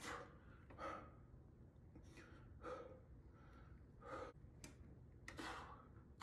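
A man breathing hard and faint, in short sharp breaths about once a second, as he works through a set of heavy seated dumbbell shoulder presses.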